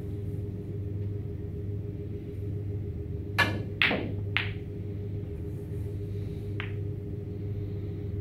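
A snooker shot: the cue strikes the cue ball about three seconds in, then two sharp clicks of snooker balls colliding follow within a second, and a single softer click comes about two seconds later. A steady low hum runs underneath.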